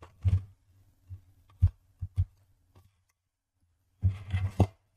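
Handling noise from the opened plastic housing of a blood pressure monitor: a few separate low knocks in the first half, then a short cluster of knocks and rustling near the end.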